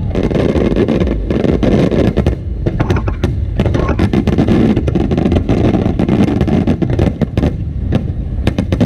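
Fireworks display going off in a rapid barrage: many sharp cracks and pops over a continuous low rumble of bursts.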